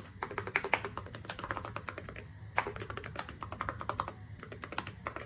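Fast typing on a mechanical keyboard fitted with ceramic keycaps: a dense, irregular run of key clacks, with a brief pause a little past two seconds in.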